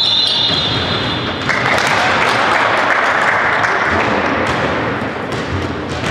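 Sounds of an indoor basketball game: the ball and players' feet thud and tap on the court over a dense wash of hall noise. A thin high steady tone sounds for about the first second and a half.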